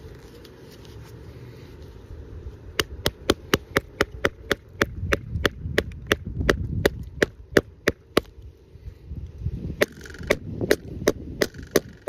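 Steady, rapid hammer blows, about three a second, driving the steel blade of a Kershaw Livewire OTF knife into a wooden tree stump. The strikes begin about three seconds in, stop briefly a little after eight seconds, and start again near ten seconds.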